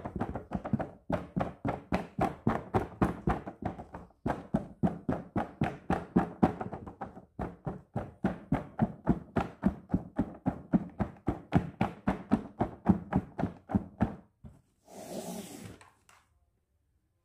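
Hands tapping rapidly on a fabric-covered surface and the plastic window of a doll box, about four to five taps a second, with two short pauses. Near the end the tapping stops and there is a brief swishing rustle.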